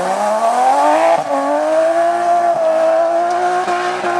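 BMW M3 rally car's engine accelerating hard: its pitch climbs steeply over the first second, dips briefly about a second in, then holds high and nearly level with a few small dips.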